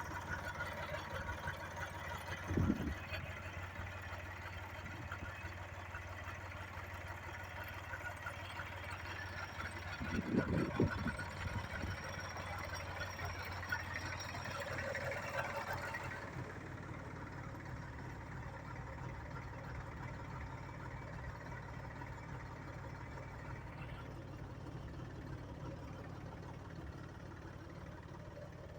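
Landini Blizzard 50's three-cylinder Perkins diesel engine running steadily, with two dull thumps, one about two and a half seconds in and one about ten seconds in.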